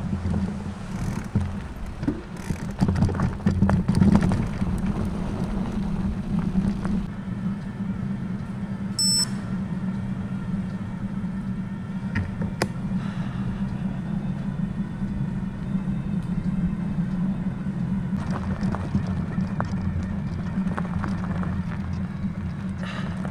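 Steady low drone of a moving vehicle's engine, with scattered light clicks and a brief high beep about nine seconds in.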